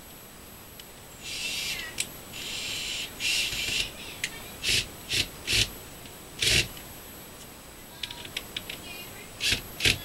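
Cordless drill driving screws into a wooden door jamb to fasten a strike plate: two longer runs early on, then several short trigger bursts as the screws seat, with sharp clicks in between and a loud click near the end.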